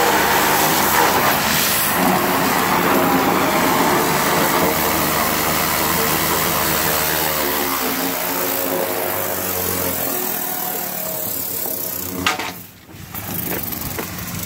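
High-pressure water jet from a sewer jetter hose blasting into a sheet of plywood: a loud, steady hissing spray over a running engine. The spray eases about halfway through while the engine keeps running, and a single sharp knock comes near the end.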